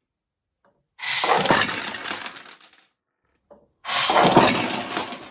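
Sixty screws pouring out of a 3D-printed dispensing magazine in a single rapid rush, a dense metallic clattering that dies away over a couple of seconds. It happens twice, about a second in and again near four seconds.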